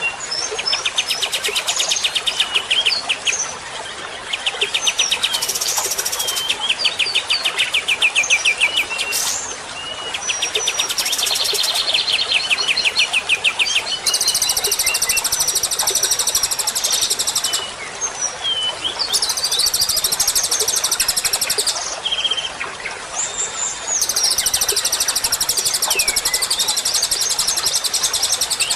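Songbird song from a masteran recording (bird song used to train caged songbirds): bursts of fast chattering trills and short whistled slurs, then from about halfway on, long, high, buzzy trills that repeat several times.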